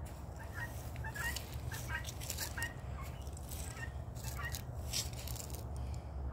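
Scattered short bird calls, with a few brief brushing rustles and a steady low rumble underneath.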